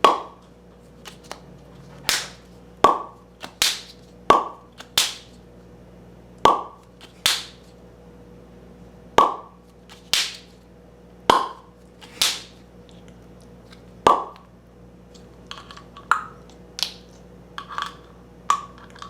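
A series of about fifteen sharp clicks, each with a short ring, coming irregularly at roughly one a second.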